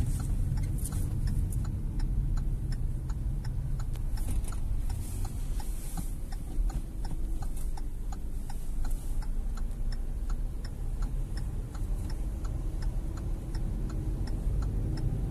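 Hyundai HB20's turn-signal indicator ticking steadily at about two to three clicks a second, signalling a left turn. It plays over the car's low engine and road rumble inside the cabin.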